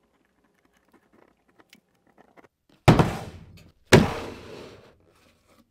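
A few faint clicks, then two loud sudden thumps about a second apart, each dying away over most of a second.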